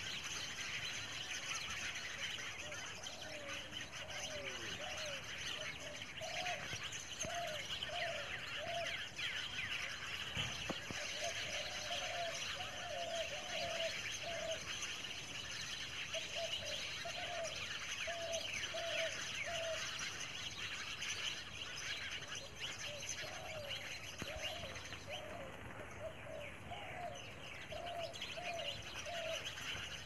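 Evening chorus of many birds chirping densely and continuously, roosting birds in a palm tree. Through it runs a lower call, repeated about twice a second in runs of four to six notes.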